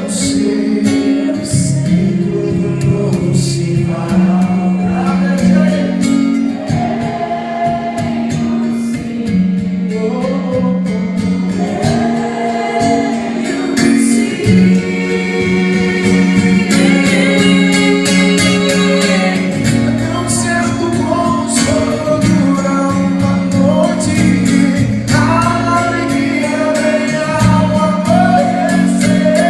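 Music with singing voices over sustained low notes that change every few seconds.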